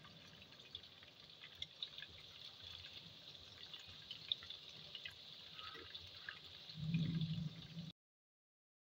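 Breaded chicken drumsticks shallow-frying in hot oil, a steady faint sizzle with scattered small pops and crackles as the pieces are turned with tongs. About seven seconds in there is a short louder low rumble, then the sound cuts off abruptly.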